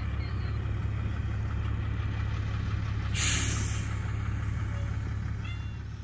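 Combine harvester running steadily with a low engine drone, and a short hiss about three seconds in.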